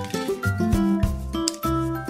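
Background music with a repeating bass line and a melody of held notes.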